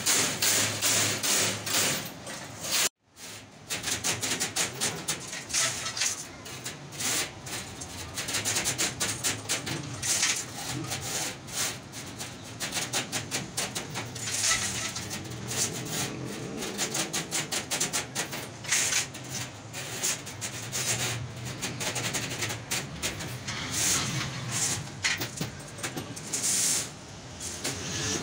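Rapid, irregular metallic clicking and tapping of steel wires being worked by hand into crimped wire mesh, the sound dropping out briefly about three seconds in.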